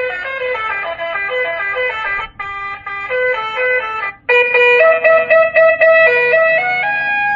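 Basuri 'telolet' electronic horn module playing a quick melody of hopping horn notes. It breaks off briefly twice and, about four seconds in, switches to a different, slower tune of longer held notes, as it steps through its sound modes.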